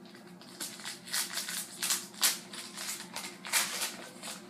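Trading cards and their foil pack wrapper being handled, making a run of irregular crinkling rustles, loudest in the middle.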